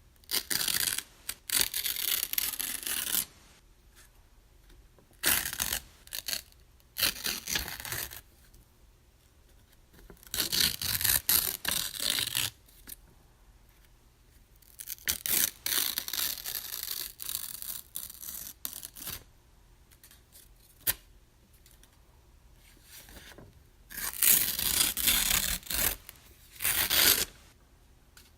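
Paper being ripped: a series of separate tears, each lasting from under a second to about four seconds, with short quiet pauses between them.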